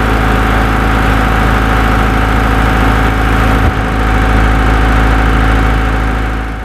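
A motor running loudly and steadily, starting and stopping abruptly.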